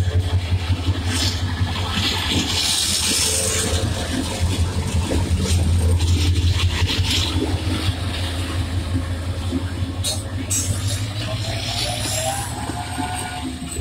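Hyundai Rotem diesel-electric locomotive's engine running with a steady low rumble, with some clatter and scraping over it. A faint rising tone comes in near the end.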